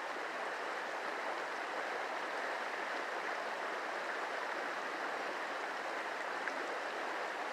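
Steady rush of a small mountain stream's flowing water.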